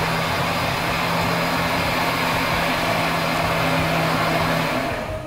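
A machine running steadily: a loud, even rushing noise with a low hum, which cuts off near the end.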